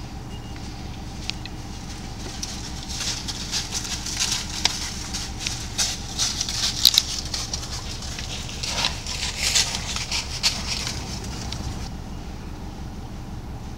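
American bison hooves crunching through dry fallen leaves as the animals walk past, a dense crackling that builds about three seconds in and fades out near the end.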